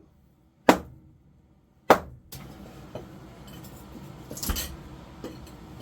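Hammer striking a saw-cut concrete floor slab: two sharp blows about a second apart, followed by lighter clinking and scraping of metal on broken concrete, with one louder knock near the end.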